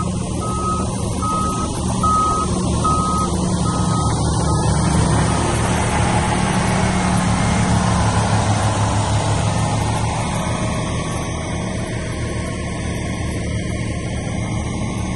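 Loaded dump truck's diesel engine running steadily as it rolls slowly over soft ground, with its reverse alarm beeping about twice a second for the first four or five seconds before it stops.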